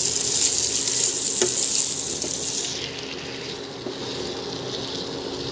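Chicken and vegetables sizzling in a hot pan, a steady hiss that drops off sharply nearly three seconds in, leaving a quieter sizzle.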